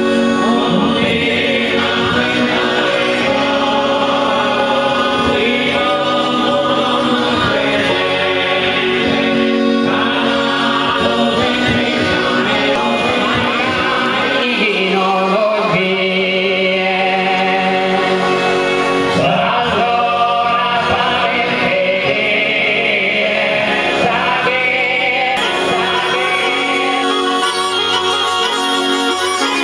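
Live Sardinian traditional music: male voices singing together in close harmony over a steady drone, with launeddas (Sardinian triple reed pipes) playing.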